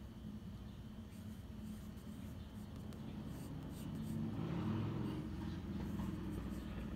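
Graphite pencil scratching and drawing lines on sketchbook paper. Under it is a steady low hum, and a low rumble swells and fades again about midway through.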